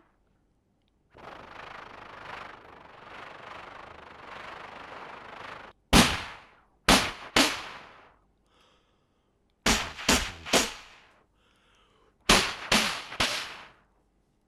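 Mouth-made imitation of gunfire: a few seconds of steady breathy hiss, then three groups of sharp shots, about three in each group, a couple of seconds apart.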